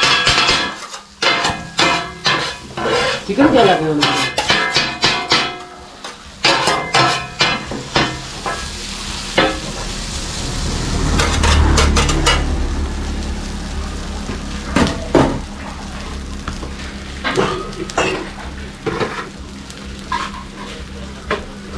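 Kotthu roti being chopped and mixed with a pair of metal blades on a hot flat iron griddle: rapid clattering metal-on-metal strikes over the sizzle of frying food. The strikes are dense for about the first seven seconds, then thin out to occasional hits while the sizzling goes on.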